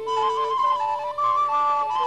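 Instrumental music: a slow melody of held notes moving step by step over a sustained accompaniment, with two or three notes sounding at once.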